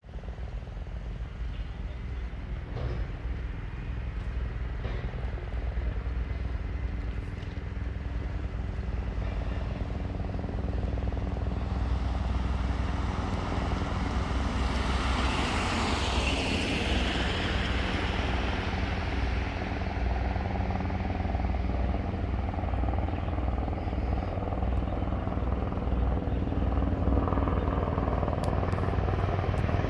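UH-60 Black Hawk twin-turbine helicopter flying past, its rotor giving a steady low thumping that grows louder, with a falling whine as it passes about halfway through.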